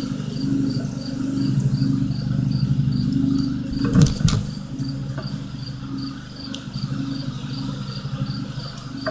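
Crickets chirping steadily, about three chirps a second, over a low steady hum, with a couple of short knocks about four seconds in.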